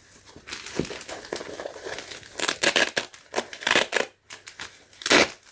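Rustling and crinkling as a cotton-nylon camp cap is handled and turned over, in irregular bursts with the loudest near the end.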